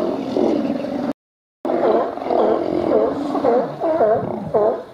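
A crowd of California and Steller sea lions calling: many overlapping, repeated barks in a continuous din. The sound cuts out completely for about half a second roughly a second in, then resumes.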